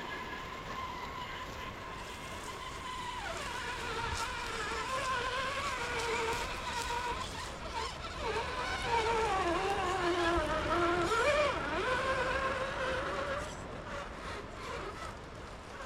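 Electric motors of radio-controlled crawler trucks whining, the pitch rising and falling as the throttle is worked, with more than one motor heard at once. The whine is loudest between about nine and twelve seconds in.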